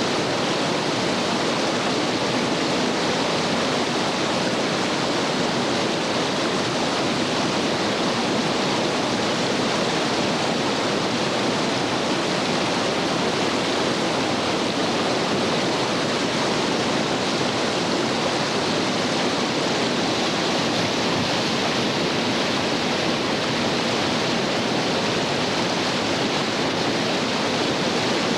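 Whitewater rapids of a creek running at about 1820 cfs, rushing steadily: a dense, even noise with no breaks.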